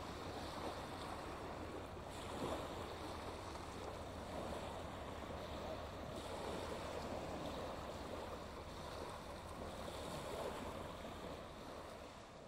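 Small waves washing onto a shingle beach, a steady wash of surf that fades near the end.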